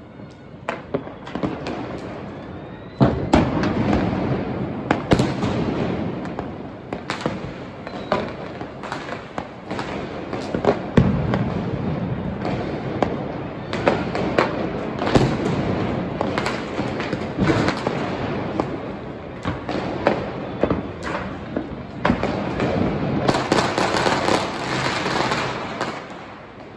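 Many Diwali fireworks and firecrackers going off across a city: a continuous crackle with frequent sharp bangs at irregular intervals.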